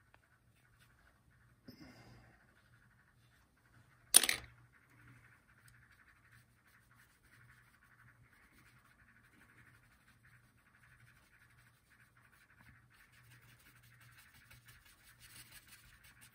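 Faint scratching of a paintbrush worked over an oil-painted linen panel, against a low steady hum, with one sharp knock about four seconds in.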